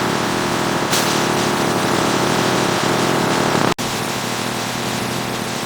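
Steady noise of factory production-line machinery running, with a momentary dropout about two-thirds through.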